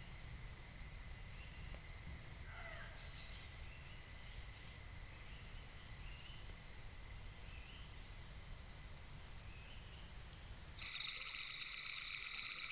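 Night forest insect chorus: a steady high-pitched drone, with a few faint chirps a couple of seconds in. About eleven seconds in it cuts abruptly to a different chorus, a fast pulsing trill lower in pitch.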